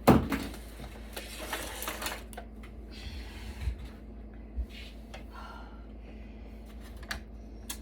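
Server parts being handled during disassembly: a sharp knock right at the start, a brief scraping rustle, then scattered light clicks of metal and plastic components and latches being worked.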